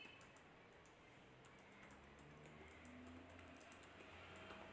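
Near silence, with faint scattered clicks from a ladle stirring thin urad dal batter in an aluminium pot.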